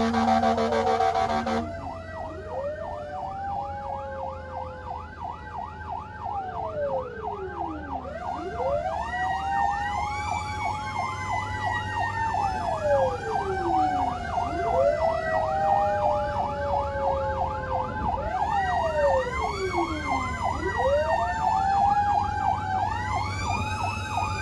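Emergency vehicle sirens sounding together, most likely fire truck sirens: a fast yelp warbling up and down several times a second overlapped by slow wails that rise and fall about every six seconds. A steady low engine and road rumble runs underneath. About two seconds in, a steady multi-tone sound cuts off abruptly, and the sirens come in.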